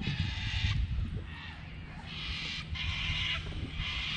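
Spinning fishing reel whirring in about five short bursts, each around half a second long, over a steady low rumble.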